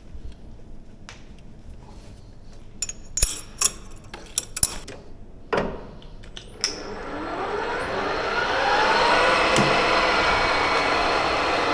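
A few sharp metal clinks and knocks, then a metal lathe's motor starts about seven seconds in. It spins up with a rising whine and settles into a steady run.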